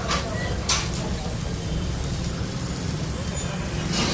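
Electric arc welding: a steady low hum under a continuous hiss, with a few sharp crackles in the first second.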